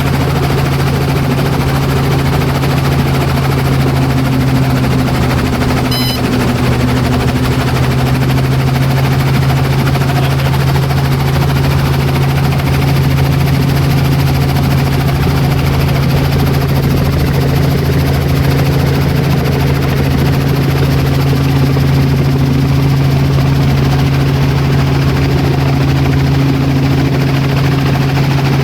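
Helicopter running steadily: a loud, constant drone with a strong, unchanging low hum.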